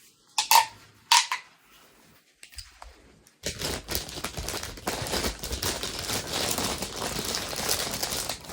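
Two short plastic pops about half a second apart from mini pop tubes. From about three and a half seconds in comes a steady, dense crinkling of plastic packaging being handled.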